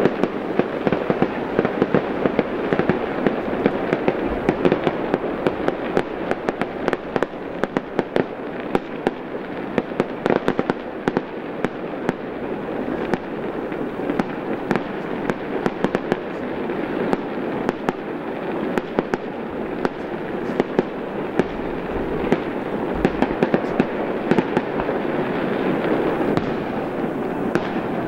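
Fireworks crackling: a dense, unbroken stream of sharp pops and snaps over a steady rushing noise.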